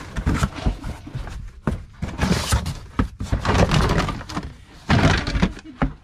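Cardboard box flaps being pulled open and rustling, with pots, pans and plastic containers knocking and clattering as they are rummaged through by hand.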